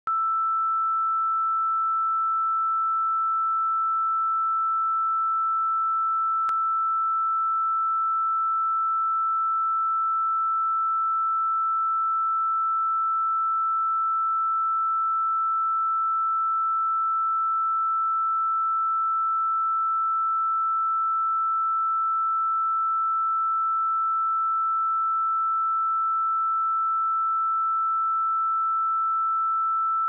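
A 1324 Hz sine-wave test tone: one steady, unbroken pure tone at constant level, used for checking speakers and headphones.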